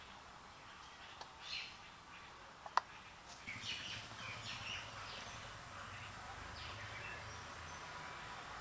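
Faint birds chirping in the background, with a single sharp click a little before the middle and a steady high hiss setting in just after it.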